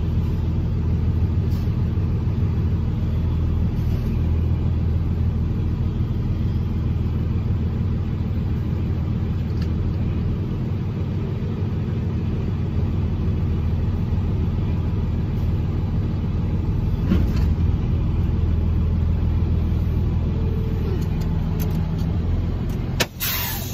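Box truck being driven, heard from inside the cab: a steady low drone of engine and road noise. The sound breaks off sharply for a moment near the end.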